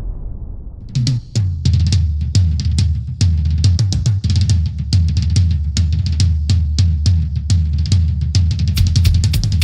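Music: a fast drum-kit beat with kick, snare and cymbals over a deep bass line, starting about a second in as a booming effect dies away.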